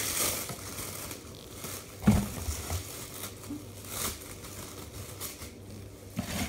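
Packaging rustling and crinkling as items are handled and pulled from a shipping box, with a soft knock about two seconds in.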